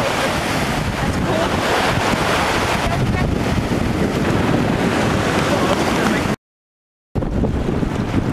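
Wind buffeting the microphone over surf washing on the shore, a steady rough rush. About six seconds in the sound drops out to silence for most of a second, then the wind and surf come back.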